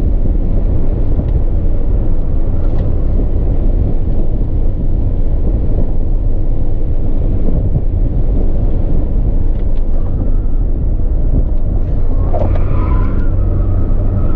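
Car driven hard on a race track: steady engine and road rumble at speed. About twelve seconds in a thin higher tone joins the rumble.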